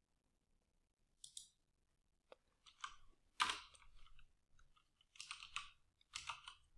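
Faint computer keyboard keystrokes and mouse clicks, in short scattered clusters, as CSS code is typed into an editor.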